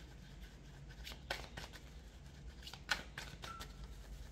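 Tarot cards being handled: a scattering of faint, light clicks and flicks of card stock over a low room hum.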